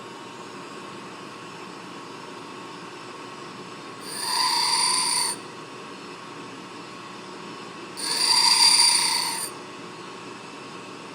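Bench grinder wheel running with a steady hum, while a twist drill bit is pressed against the spinning wheel twice, each grinding pass lasting about a second and a half, the second one louder. The passes grind the cutting face of the bit to sharpen it.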